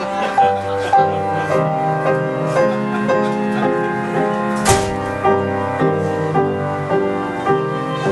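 Instrumental passage of piano with electric guitar, playing chords on an even pulse of about two a second. A single short, sharp crash sounds about halfway through.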